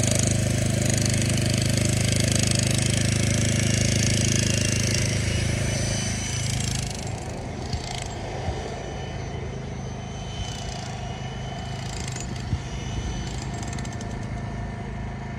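Road-works machinery at a construction site: an engine running steadily and loudly for about six seconds, then dropping to a lower rumble with a few sharp knocks.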